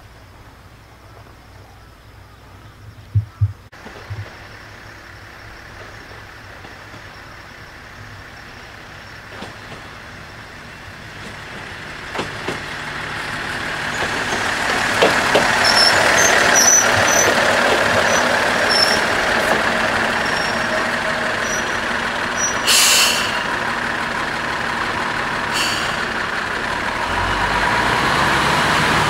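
Niigata Transys-built diesel railcar running during a shunting move, its engine and running noise building up from about twelve seconds in to a loud steady sound, with a few brief high wheel squeaks. A short air-brake hiss comes about two-thirds of the way through.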